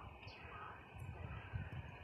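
Outdoor ambience on an open station platform: wind buffeting the microphone in uneven gusts, with a few faint high bird chirps.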